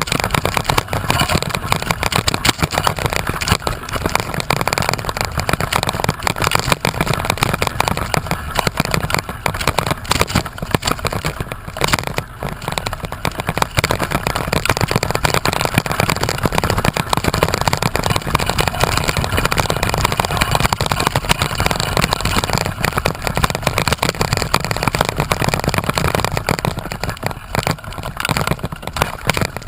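Wind buffeting the microphone: a loud, dense crackling rumble with no steady tone.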